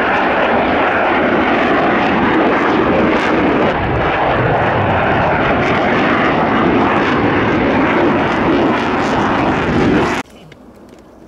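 Loud, steady jet noise from a Mitsubishi F-2 fighter's General Electric F110 turbofan flying past with the afterburner lit. It cuts off abruptly about ten seconds in, leaving a much quieter background.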